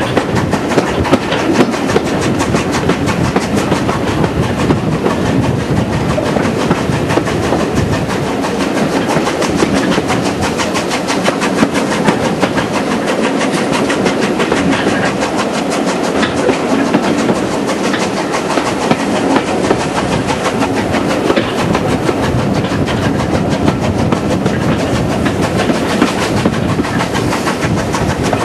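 Steam-hauled heritage train heard from an open carriage window while running: a steady, loud clatter of the carriage wheels on the track, with the locomotive working ahead.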